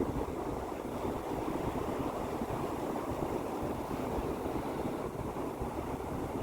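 Sea waves: a steady wash of surf, with no single crash standing out.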